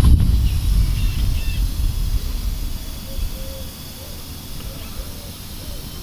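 Low rumbling noise on the microphone, strongest for the first two and a half seconds and then easing off, with faint voices in the background.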